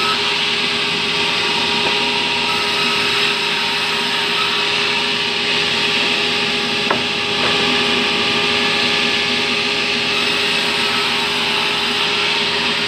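Sawmill band saw running and cutting through fibrous terap timber: a steady loud whine and rasp of the blade in the wood, with one sharp knock about seven seconds in.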